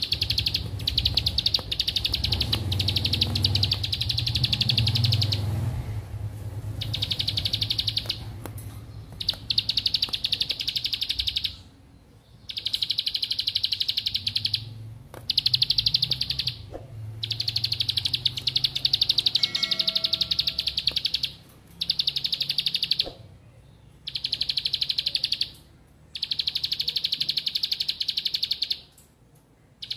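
Caged prinia (ciblek) singing very fast, high-pitched buzzing trills, each lasting a second to several seconds, repeated about ten times with short pauses between.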